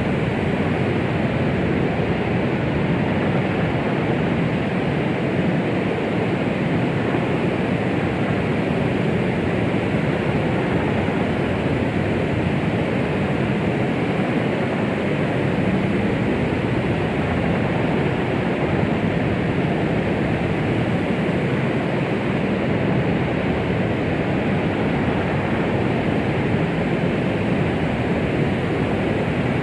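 Steady white noise, a rushing hiss heaviest in the lows and mids, made to imitate the sound of the womb and calm a baby.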